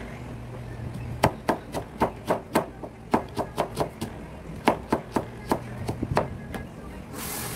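Kitchen knife slicing carrot into long strips on a plastic cutting board: a run of sharp knocks, about four a second, broken by a couple of short pauses. A brief rush of hiss comes near the end.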